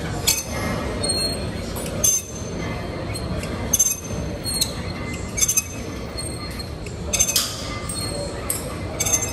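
Gym weights clinking: sharp metal-on-metal clinks with a brief ringing, about every one to two seconds, over a steady low hum.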